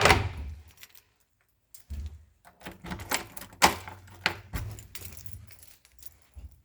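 A bunch of keys jangling with a string of sharp clicks, the loudest about three and a half seconds in, over a low handling rumble.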